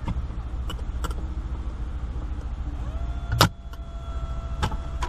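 Plastic trim clicks as the rearview mirror's thin plastic cover is unclipped from the windshield sensor housing, with one loud snap about three and a half seconds in. A steady low hum runs underneath.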